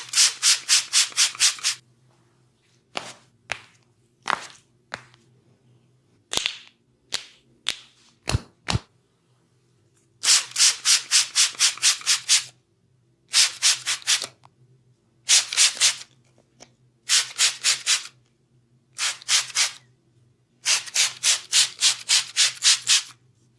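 Bursts of fast hand strokes rubbing over bare skin, five or six strokes a second, the 'skin cracking' sound of a barber's massage. Between the bursts come single strokes and, about eight seconds in, two deep thumps.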